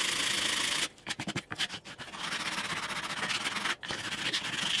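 Hand sanding the edge of a wooden boat hull: a steady scratchy rubbing, broken about a second in by a run of short quick strokes, then steady rubbing again with a brief pause shortly before the end.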